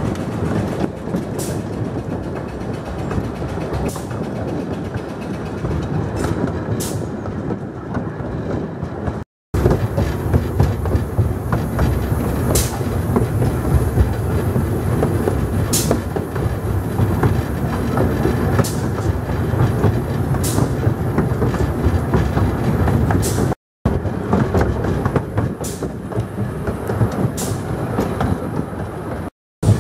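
A 12¼-inch-gauge miniature steam train running on its track, heard from a carriage: a steady rumble with sharp clicks every second or two. The sound cuts out abruptly for a moment three times.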